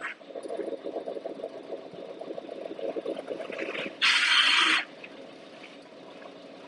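A machine running with a fast, uneven rattle. About four seconds in, a loud hiss like a burst of air lasts under a second. After that the rattle stops and only a quieter steady background remains.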